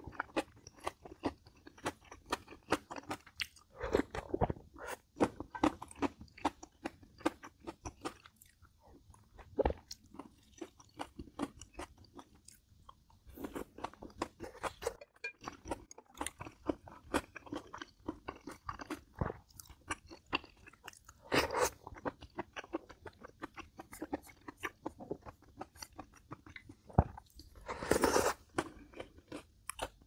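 A person chewing and crunching food, with dense rapid mouth clicks throughout. There are a few louder crunching bites, about 4 seconds in, about 21 seconds in and near the end.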